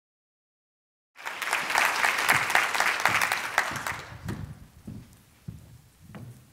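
Audience applauding, starting abruptly about a second in and dying away a few seconds later. A few soft low thumps follow, about half a second apart.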